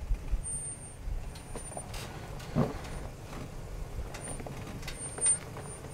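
Lifted Ram Power Wagon pickup crawling down a steep rock ledge. The engine makes a low, steady rumble at crawling speed, and the tyres crunch over the rocks with scattered knocks, a louder one about two and a half seconds in.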